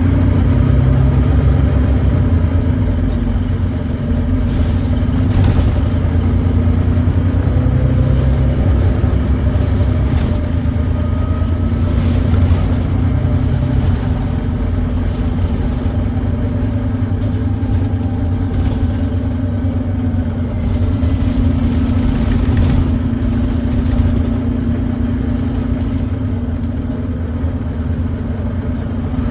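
Volvo D9B 9.3-litre diesel engine of a Volvo B9TL double-decker bus driving with the ZF six-speed automatic, its note swelling and easing several times as it pulls and backs off. The engine has an exhaust leak. Short knocks and rattles come through now and then.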